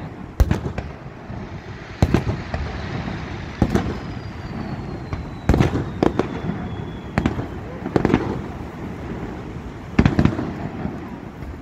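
Aerial fireworks shells bursting in a display: about eight sharp bangs, one every one to two seconds. A faint whistle slowly falls in pitch near the middle.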